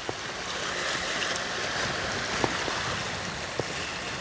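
Sea water washing against shoreline rocks: a steady rushing hiss that swells slightly through the middle, with a few faint clicks.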